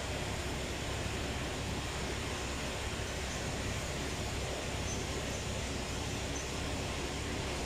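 Steady workshop background noise: an even rush with no distinct knocks, clicks or tool strikes.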